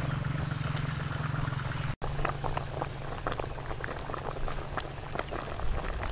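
Black chicken soup boiling in a metal pot, its bubbles popping in quick, irregular clicks. A steady low hum lies underneath for the first two seconds, up to a brief dropout.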